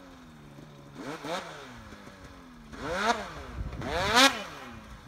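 Two-stroke mountain snowmobile engine revving in three short bursts, its pitch rising and falling each time. The last burst is the loudest.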